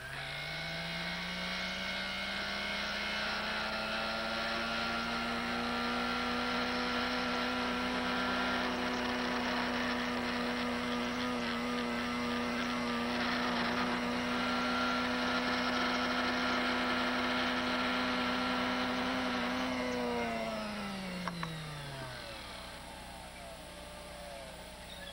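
Small clockmaker's lathe motor spinning up at the start, running with a steady whine, then winding down about 20 seconds in. Over it, an oiled Indian stone hisses against the spinning clock-gear pivot as the pivot is stoned down to size.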